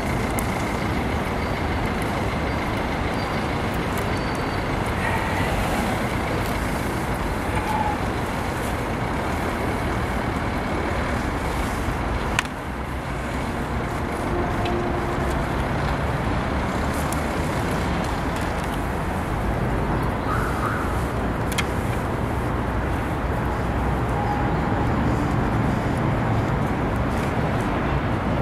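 Steady outdoor city noise: a continuous rush of road traffic, with a single sharp click about twelve seconds in.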